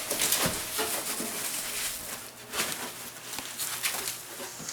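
Irregular rustling and light clicks and knocks of things being handled.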